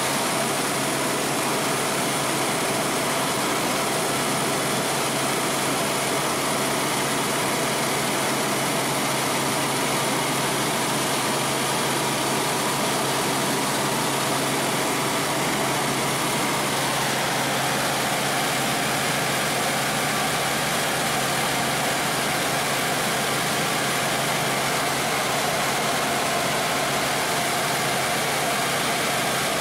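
Helicopter engine and rotor noise heard from inside the cabin: a loud, steady drone in flight.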